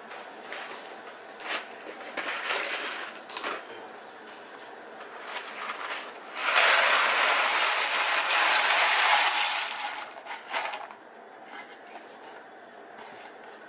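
Dry macaroni poured from a cardboard box into a pot of boiling water: a loud, steady rattling hiss for about three and a half seconds, starting about six and a half seconds in. Scattered light rattles and clicks come before it.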